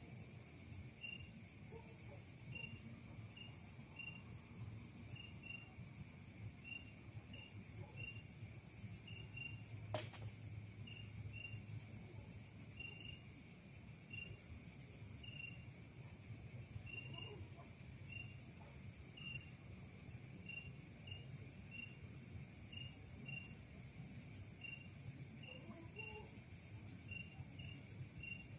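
Crickets and other insects chirping: short, evenly repeating chirps over a steady high trill, faint throughout. One sharp click about ten seconds in.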